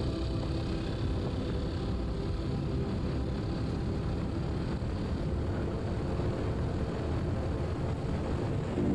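Steady low rumbling noise of a vehicle running, with no distinct events.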